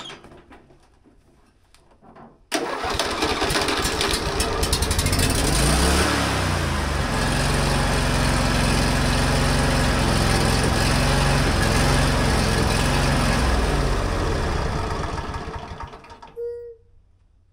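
John Deere L120 riding mower engine starting about two seconds in, revving up and running steadily, then winding down and stopping near the end as it is shut off with a newly wired kill switch.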